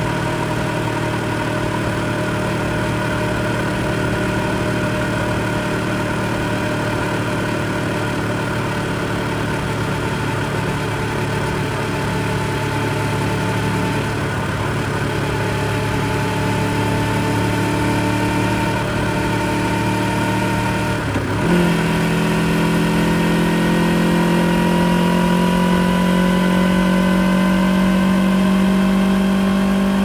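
Kawasaki Ninja 400's parallel-twin engine through its stock exhaust, running steadily at cruise. About 21 seconds in the note briefly dips and jumps in a quick gear change, after which it sits higher and climbs slowly as the bike accelerates.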